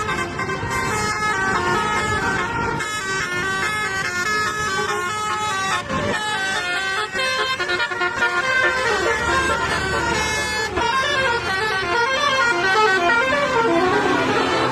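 Indonesian bus 'basuri' telolet horn, a multi-trumpet musical air horn, playing a tune as a run of short notes stepping up and down, over a low rumble.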